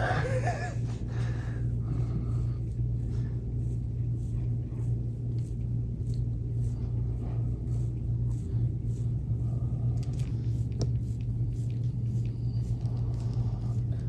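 A steady low hum, with faint, soft rubbing and contact noises from a forearm being worked firmly over the bare skin of a back during deep-tissue massage.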